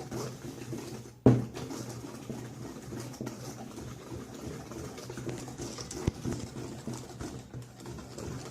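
Cake batter being stirred by hand in a mixing bowl, a steady scraping rustle with a low hum under it. There is one loud knock against the bowl about a second in and a lighter click later.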